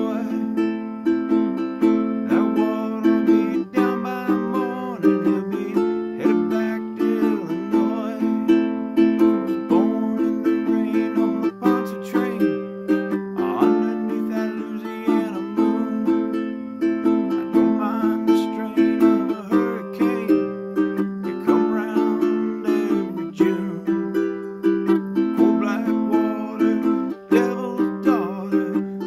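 A ukulele playing an instrumental passage: strummed chords in a steady rhythm, changing every second or two.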